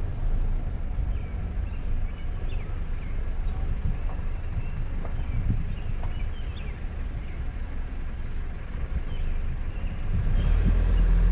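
Low rumble of a vehicle driving slowly along a paved road, growing louder near the end, with birds chirping faintly throughout.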